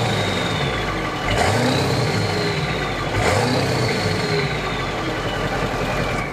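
7.3 L Powerstroke V8 turbo-diesel revved three times with the vehicle standing, heard at the tailpipe. A faint turbo whistle rises and falls with each rev. It comes from the stock turbo rebuilt with balanced KC Turbo internals, which the owner says makes the turbo a little more audible.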